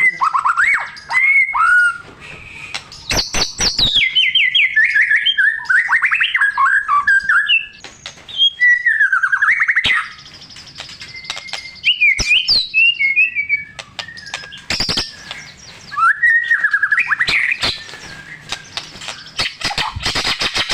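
White-rumped shama (murai batu) singing a long, varied song of rapid whistled phrases, rising and falling trills and sharp clicking notes, full of mimicked calls of other birds.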